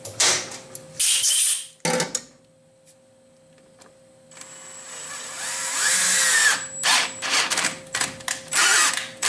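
Cordless drill turning a spiral flute tap into a hole in aluminium, run in short stop-start bursts as the tap is backed off now and then to break the chips. A couple of short runs come first, then a pause of about two seconds, then the motor whines up in speed and stops and starts several times.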